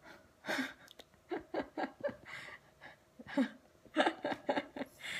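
A toddler giggling and laughing in a run of short, breathy bursts.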